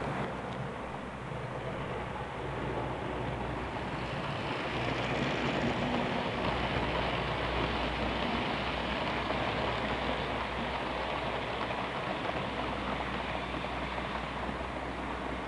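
Model freight train running past on the layout track: a steady rattle of wheels over the rails with motor hum, growing louder about a third of the way in as the wagons go by, then easing off.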